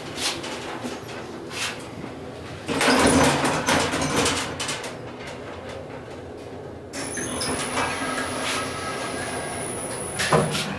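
Inclined elevator car at its lower landing: about three seconds in, a loud rushing rumble lasts a couple of seconds, then from about seven seconds the car's sliding door runs with a steady motor hum and a thin high whine, ending in a sharp clunk near the end.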